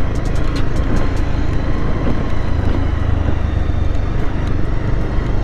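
Motorcycle riding along a rough road, its engine and road noise a steady low rumble.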